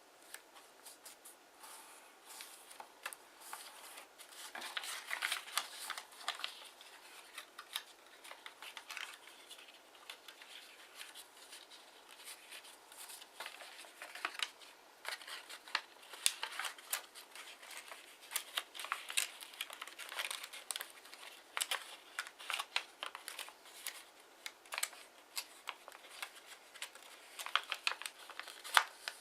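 Kraft origami paper being handled, folded and creased by hand: irregular rustling with many small crisp crackles and clicks, coming in bursts.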